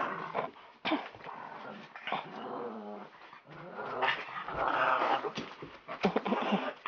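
Dog growling in play, in uneven bursts, loudest about two-thirds of the way through, with a few sharp knocks.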